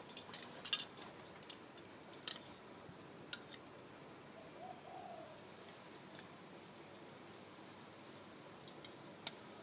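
Scattered sharp metal clicks and clinks as chicken pieces are laid onto a metal grill plate over a wood fire, several in quick succession at first, then one every few seconds.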